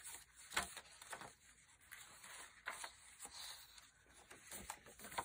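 Faint rustling of paper as the pages of a handmade junk journal are turned by hand: a few soft flicks and brushes of paper at irregular intervals.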